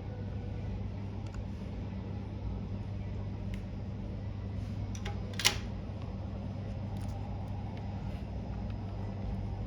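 Steady low hum with faint small ticks, and one sharp click about halfway through.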